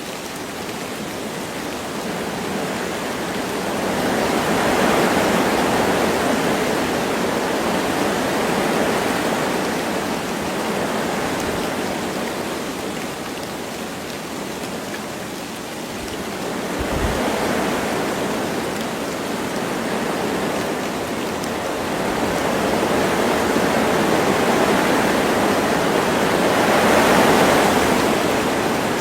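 Wind blowing through forest trees with light rain, a steady rush that swells and eases in slow gusts about every ten seconds. A brief low thump comes a little past halfway.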